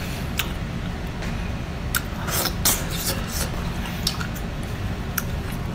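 Eating sounds and handling of a plastic tray of sweet shrimp: scattered soft clicks and short wet rustles, several over a few seconds, over a steady low background hum.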